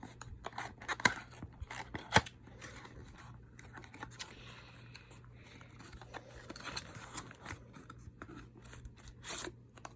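Handling noises from opening a facial-oil box and its dropper bottle: scattered sharp clicks and taps, two loud ones in the first few seconds and another near the end, with scratchy scraping between them. A faint steady low hum runs underneath.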